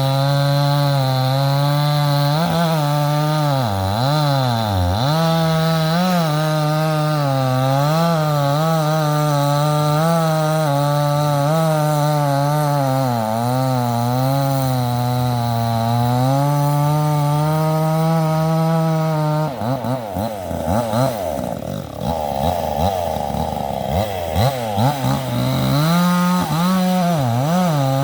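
A 62cc two-stroke chainsaw with a 20-inch bar running while cutting through ice-laden fallen timber, its engine pitch dipping and recovering under load. About twenty seconds in the sound turns rough and uneven for several seconds, then steadies again.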